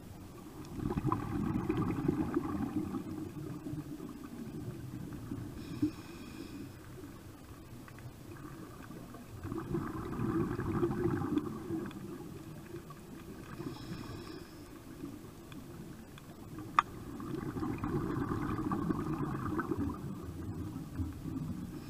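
Scuba diver breathing through a regulator underwater: three long, rumbling, bubbly exhalations about eight seconds apart, with a shorter, higher hiss of inhalation between them. One sharp click comes about three-quarters of the way through.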